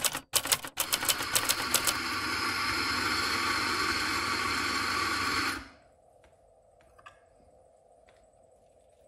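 Typewriter key clicks, rapid and irregular, for about two seconds. Then an electric coffee grinder runs steadily and stops suddenly about five and a half seconds in, leaving a faint hum with a few small knocks.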